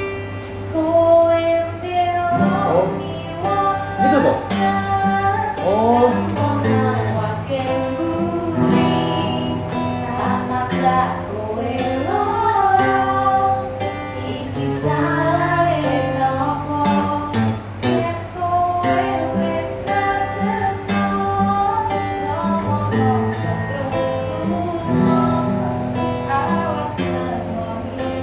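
A woman singing a song, accompanied by a strummed acoustic guitar.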